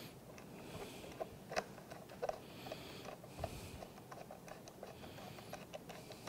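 Faint, irregular small clicks and light scraping of a flathead stock screw being threaded in by hand behind a rifle's trigger guard.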